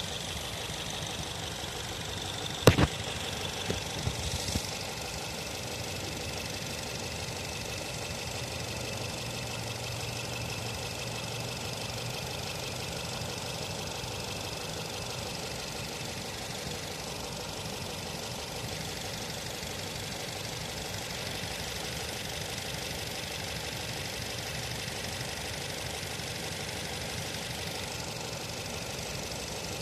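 Nissan Tiida's four-cylinder engine idling steadily with a misfire, the fault that makes the engine shake. One sharp click comes about three seconds in, followed by a few lighter knocks a second or so later.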